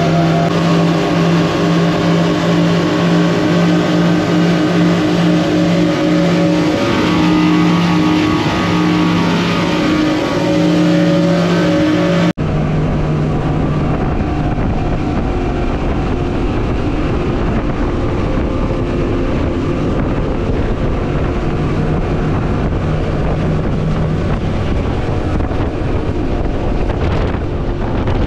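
Outboard engines of a Cobia 350 center console boat running under way at speed, with wind and water rushing past. The sound changes abruptly about twelve seconds in.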